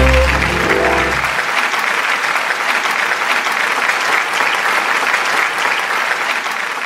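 Audience applauding steadily. The last held note of the closing music dies away about a second and a half in.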